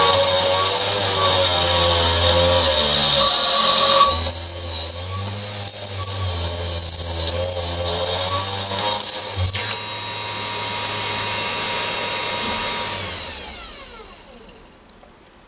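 Machifit 500W ER11 spindle motor on a lathe cross-slide driving a drill bit into a metal tube: a loud, rough cutting noise over the motor's whine. About ten seconds in the cutting stops and the motor runs on alone with a steadier whine. Near the end it winds down, its pitch falling and fading.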